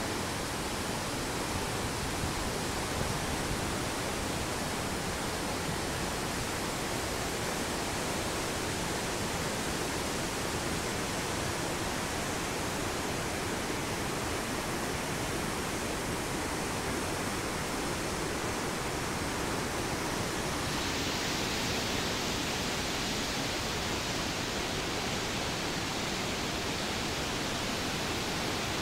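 A waterfall in flood, swollen brown river water pouring over rock ledges into a churning gorge, making a steady, even rush of water. The sound turns hissier about twenty seconds in.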